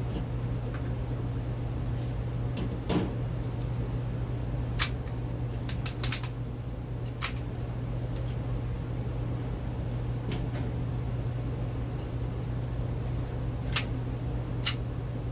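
ASG Steyr L9-A2 CO2 blowback airsoft pistol firing single shots at irregular intervals, each a sharp crack, with a quick cluster about six seconds in, over a steady low hum.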